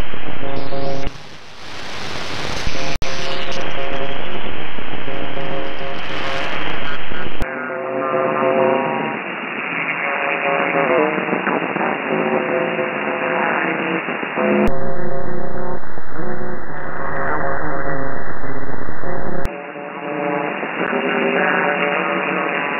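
A strange-sounding song received over HF radio on a FlexRadio FLEX-1500 transceiver, music mixed with radio noise. About a third of the way in, the sound abruptly turns narrower and thinner, then changes again twice, as the receive bandwidth shifts. The uploader puts the weird sound down to probably sub-par filtering.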